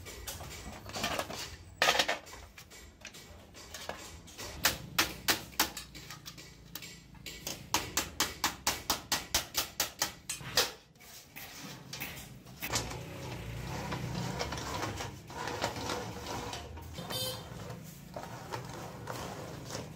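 Hammer blows on galvanized sheet steel as its edge is bent over a wooden form: sharp metallic strikes, a few spaced ones and then a fast even run of about four a second that stops about ten and a half seconds in. After that, quieter knocks and scraping as the metal is handled.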